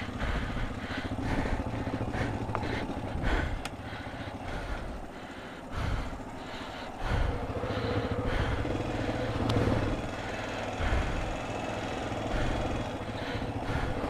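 ATV engine running, with repeated short knocks and rattles.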